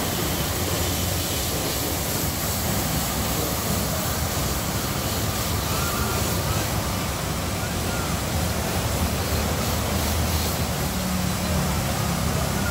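High-pressure washer spraying water onto a car: a steady, even hiss of spray with a low hum underneath.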